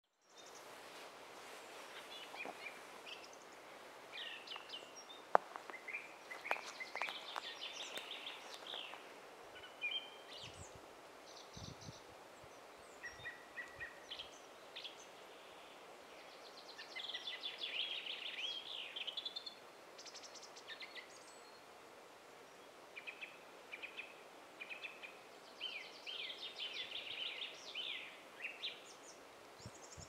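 Forest songbirds singing in bouts of quick chirps and trills over a faint steady hiss. A single sharp click comes about five seconds in, and a few low thumps come around eleven to twelve seconds.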